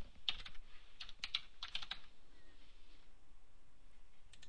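Typing on a computer keyboard: a quick run of keystrokes for about the first two seconds, a pause, then two more keystrokes near the end.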